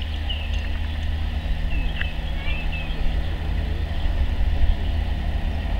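Steady low vehicle rumble with a hum, while birds chirp now and then.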